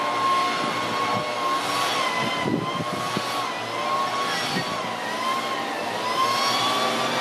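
JR 185 series electric train pulling slowly away from the platform, its running noise carrying a high whine that wavers up and down in pitch over a low rumble, with a few dull knocks.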